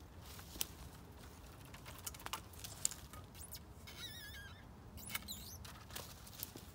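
Long-handled bypass loppers cutting bare fruit-tree branches: a handful of short, sharp snips scattered through. A bird's warbling call about four seconds in, and a brief one just after.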